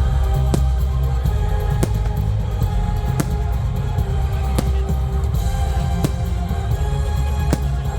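Loud music with a heavy bass and held tones, punctuated by a sharp hit about every second and a half.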